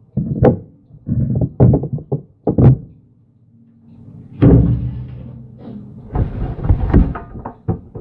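Knocks and thuds of things being handled and set down in a kitchen close to the microphone. A louder clatter about four and a half seconds in rings on briefly before more knocks.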